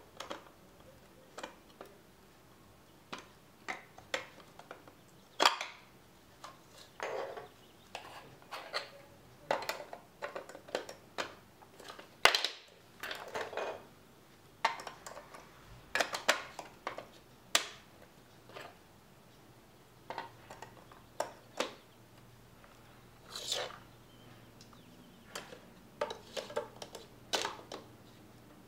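Plastic LEGO DUPLO bricks clicking and clacking as they are pressed onto a stacked tower and handled, in irregular single clicks with a few sharper knocks.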